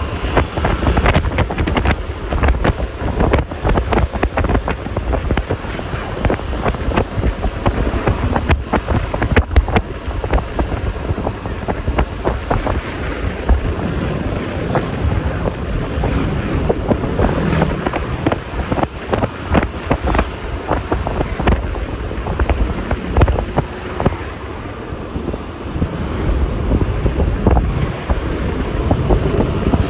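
Wind buffeting the microphone of a phone riding on a moving Yamaha Lexi LX 155 S scooter, over the rush of road and traffic noise.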